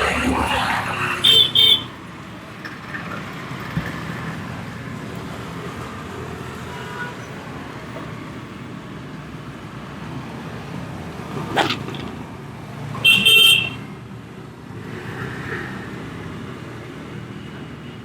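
Steady street traffic with a vehicle horn sounding in short toots twice, about a second in and again about two-thirds of the way through. A single sharp knock comes just before the second horn.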